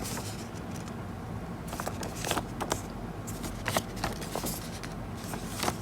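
Hands handling the paper and cardboard contents of a smartphone box: scattered soft taps, light scrapes and rustles as the pieces are lifted out and set down.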